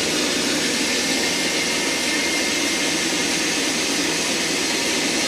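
Rotovac rotary carpet extraction machine running steadily as it scrubs and vacuums soiled carpet, making an even, unbroken hiss.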